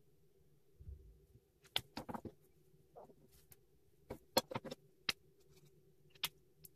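Plastic Ohuhu art markers being handled on a desk: a soft thump about a second in, then scattered sharp clicks and taps, some in quick runs, as markers are picked up, set down and uncapped.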